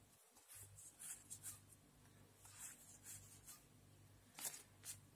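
Faint soft rustles of trading cards sliding against one another as they are handled and sorted, a handful of brief swishes.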